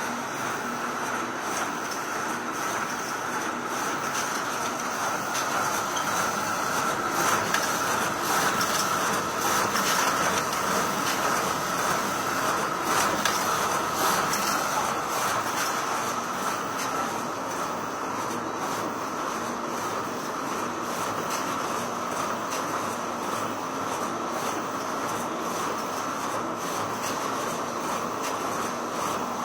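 Photocopier running continuously: a steady mechanical whir with a constant high-pitched hum and faint clatter, swelling slightly for a few seconds in the middle.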